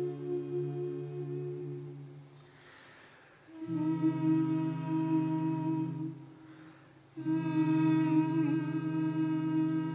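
Small vocal ensemble humming long, steady held chords. The chord fades out twice, and each time a new held chord comes in about a second later.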